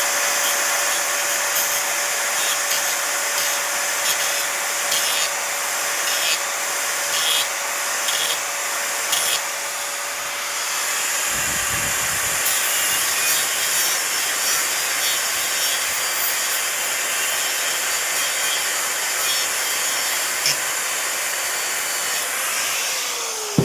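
Electric angle grinder running at a steady speed with a constant whine, its disc cutting into acrylic sheet with a wide hissing rasp. Right at the end it is switched off and the whine begins to fall in pitch as the disc winds down.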